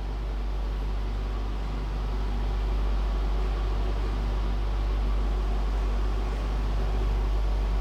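A steady low machine hum with no speech over it.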